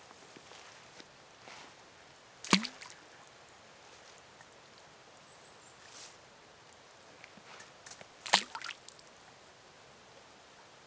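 Underwater sounds picked up by hydrophones in a forest pond: two short, sharp sounds about six seconds apart, each with a brief low note that rises in pitch, among faint scattered ticks over a steady hiss. The source is unidentified.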